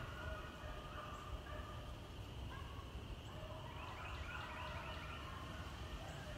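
A pack of beagles baying on a rabbit's trail, several voices overlapping, busiest about four seconds in, over a steady low rumble.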